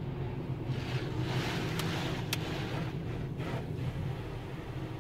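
Touchless automatic car wash spraying rinse water over the car, heard from inside the cabin. A rush of spray hits the roof and windshield about a second in and lasts a couple of seconds, with two sharp ticks, then a shorter second rush, all over a steady low hum.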